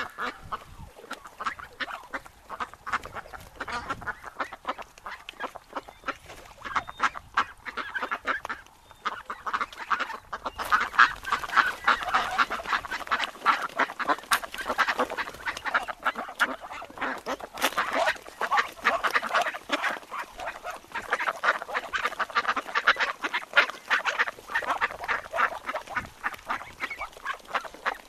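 A flock of wild ducks quacking, many short calls overlapping in quick succession. The calling is sparser at first and grows busier from about ten seconds in.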